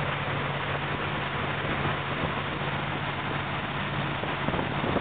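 A fishing boat's engine running steadily at cruising speed, with the rush of water from the churning wake behind the stern.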